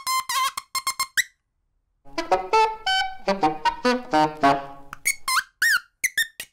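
Solo saxophone playing jazz: a burst of short high notes, a pause of about a second, then a run of lower notes, and near the end sharp high notes that bend in pitch.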